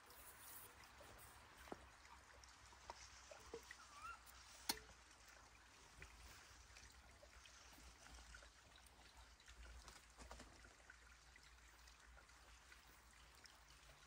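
Faint, steady rushing of a creek and waterfall, with a few scattered soft clicks, the sharpest about five seconds in.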